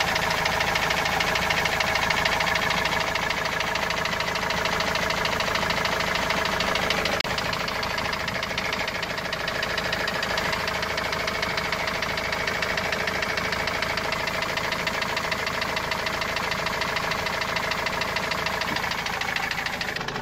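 Opel Vivaro's 2.5-litre diesel engine running with a continuous, rapid knock, "like a hammer". It is an internal engine fault whose cause the owner cannot trace.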